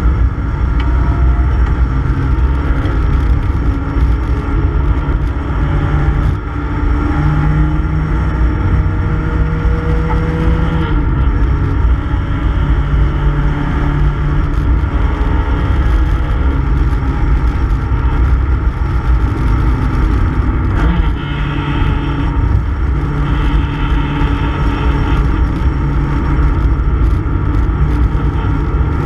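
A 1960s Mini Cooper S race car's A-series four-cylinder engine running hard, heard from inside the cabin as the car is driven around the circuit. Its pitch holds steady, then steps up and down as the driver goes through the gears.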